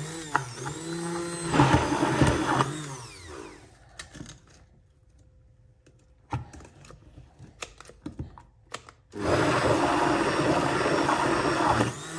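Braun MultiQuick 9 hand blender's 1200 W motor blending a thick smoothie mix, its pitch rising and falling under load for about three seconds before it stops. A few light knocks follow, then it runs again steadily near the end; the owner finds the blender not really that strong.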